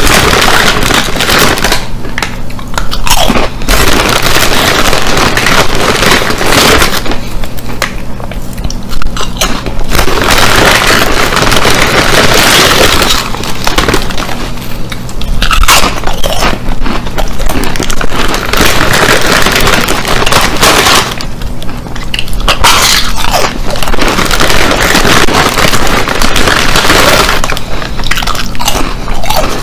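Loud close-up crunching and chewing of ridged Ruffles potato chips, bite after bite in bursts with short pauses between.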